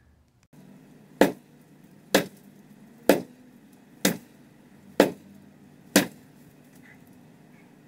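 An axe chopping into the trunk of a small tree: six sharp blows, about one a second.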